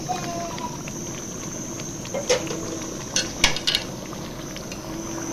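Water bubbling at the boil in a large aluminium cooking pot, with a few sharp clinks of a plate or utensil against the pot: one about two seconds in and three close together around three and a half seconds.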